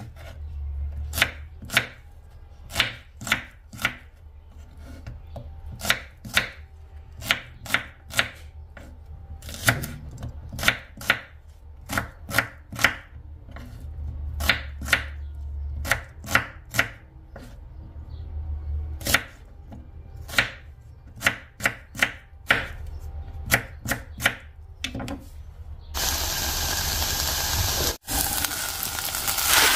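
Kitchen knife chopping an onion on a wooden cutting board: a string of irregular sharp knocks. Near the end the chopping stops and a steady sizzle begins as the chopped onion fries in hot oil in the pot.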